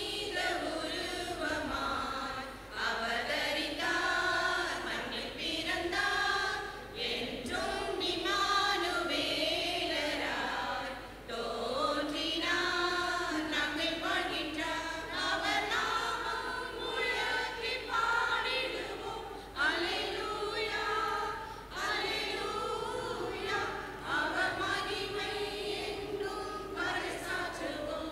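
Church choir of mostly women's voices singing a Christmas carol.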